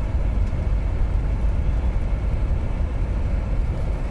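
Inside the cabin of a UAZ Patriot driving at low revs: a steady low engine and road rumble.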